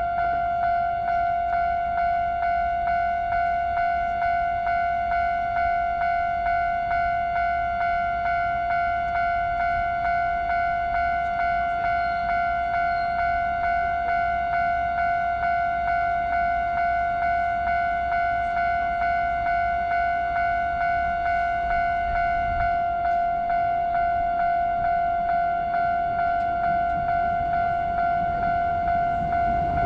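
Japanese level-crossing warning bell ringing: one electronic bell tone struck over and over at a steady, even beat, the signal that a train is approaching. The rumble of the train begins right at the end.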